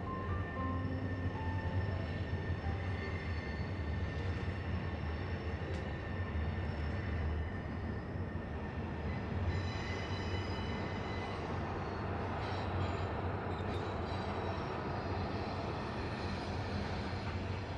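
A train running on the tracks up the hill: a steady rumble with thin, steady high squealing tones over it.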